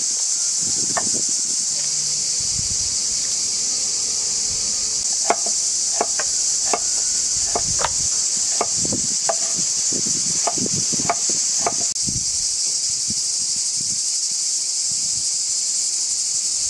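A steady high-pitched insect chorus throughout, with a run of knife chops on a wooden cutting board as onion is chopped, about two a second, from about five seconds in until about twelve.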